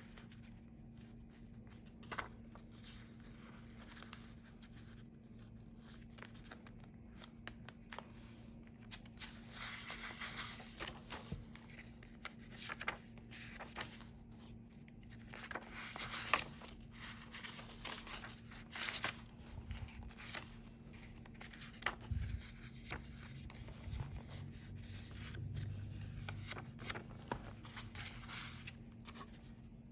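Paper and card rustling and brushing as hands turn the pages of a handmade junk journal and lift its loose paper inserts, with a few sharp taps. Quiet at first, then busier rustling from about a third of the way in. A faint steady low hum runs underneath.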